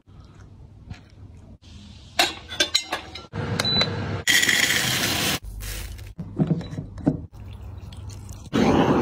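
A run of short kitchen sounds cut together: sharp clinks and taps of utensils on dishes, a brief high electronic beep from a cooker's control panel, a long burst of hiss, and a loud rushing noise near the end.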